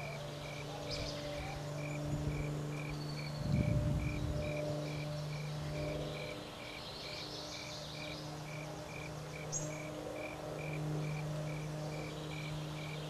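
Outdoor ambience: a short high chirp repeating evenly at about two a second, over a low steady hum. A brief low rumble comes about three and a half seconds in, and a few faint high chirps are heard here and there.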